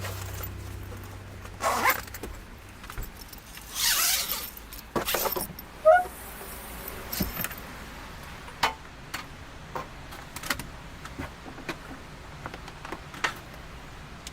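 Irregular clicks, knocks and short scraping sounds, one every second or so, loudest in the first half, as background music fades out at the start.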